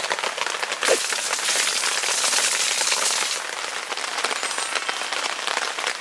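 Heavy rain falling, a dense patter of drops that swells a little for a couple of seconds in the middle.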